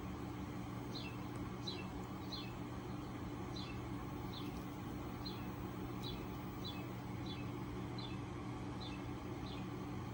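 A small bird repeating a short, high, falling chirp about every 0.7 seconds, over a steady low hum.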